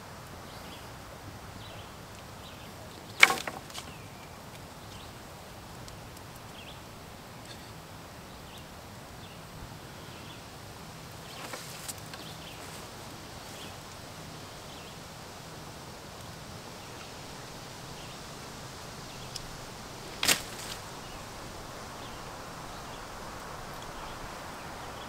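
Sharp cracks of wood: a loud one about three seconds in, a fainter one around twelve seconds, and another loud one near twenty seconds, over a faint steady hiss.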